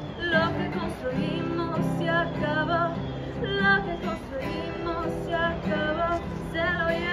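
A woman singing a song to acoustic guitar accompaniment, with held, wavering sung notes over the guitar.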